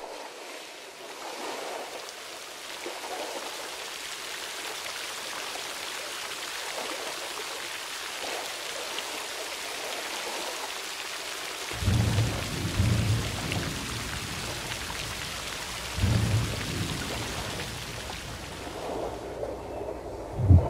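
Steady rain hissing, with two low rolls of thunder about twelve and sixteen seconds in and a short, loud low boom right at the end.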